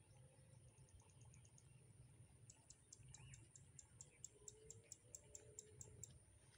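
Near silence: faint outdoor field ambience, with a faint rapid high-pitched ticking, about five ticks a second, that starts a couple of seconds in and stops shortly before the end.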